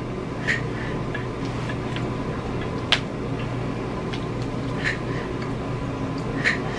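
Eating sounds: a plastic fork clicking against a plastic takeout container, then a few soft mouth clicks and smacks while chewing, spread a second or two apart, over a steady background hum.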